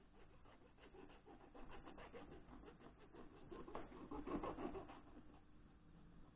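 Kitchen knife cutting and scraping along a fish on a cutting board while filleting it. A faint run of rasping strokes starts about a second in, is loudest around four seconds, and fades near the end.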